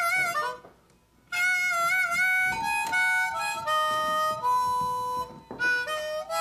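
Harmonica playing a slow melody of held single notes, with a short break about a second in.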